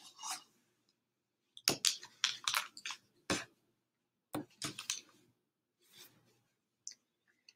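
Pens clicking and knocking against each other as they are put into a felt pouch: a loose series of short plastic clicks and rattles, thickest from about one and a half to five seconds in, then a few fainter ones.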